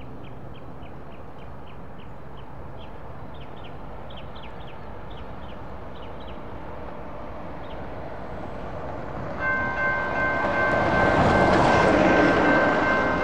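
A small bird chirping repeatedly, then about nine and a half seconds in a railroad crossing's electronic bell starts ringing as the signals activate, while a road vehicle drives across the crossing.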